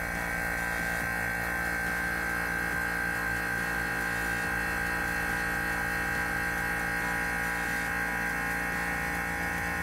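Vacuum pump running steadily with a constant hum and whine while it evacuates the chamber, pulling the pressure down from atmospheric toward half an atmosphere.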